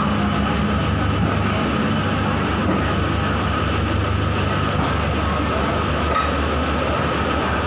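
Passenger train coaches rolling slowly past on the adjacent track: a steady rumble of wheels on rails, with a steady high whine running through it and a few light knocks.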